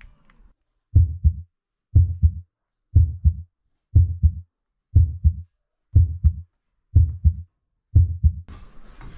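Heartbeat sound effect: a low, muffled thump-thump about once a second, eight beats in all, with complete silence between the beats. Ordinary background noise comes back near the end.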